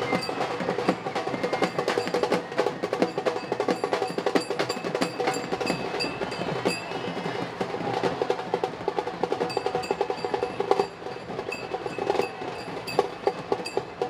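Festival percussion: fast, continuous drumming with ringing metallic strikes mixed in.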